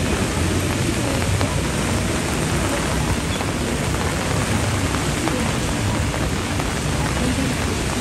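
Heavy typhoon rain falling steadily, a dense, even hiss of downpour on the street and surfaces.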